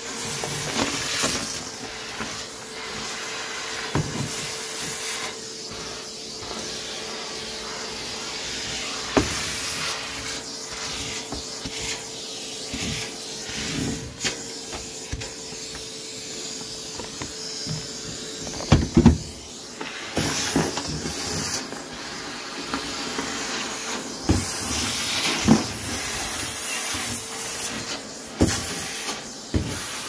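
Vacuum cleaner running with its hose and metal wand on carpet: a steady motor hum and hiss of rushing air, broken now and then by sharp knocks and clatters as the wand bumps along the baseboard and sucks up debris, most of them about two-thirds through.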